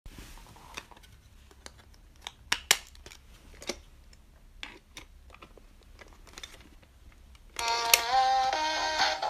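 Faint scattered plastic clicks and knocks as a hollow plastic Psyduck toy figure is handled and pressed onto its plastic base. Near the end a bright melody with stepping notes starts and is louder than the clicks.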